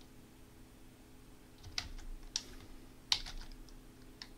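A few separate computer keyboard keystrokes, quiet for the first second and a half and then about four clicks, the sharpest a little after three seconds in, over a faint steady hum.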